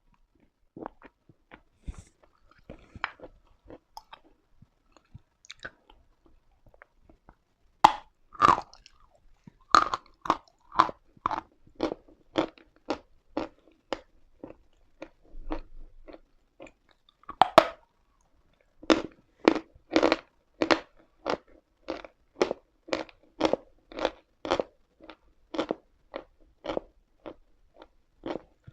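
A person biting into chalk and chewing it, with crisp crunches. Faint small crackles come first. About eight seconds in there are two loud bites, then steady chewing at about two crunches a second. After a short pause comes another bite, then more steady chewing.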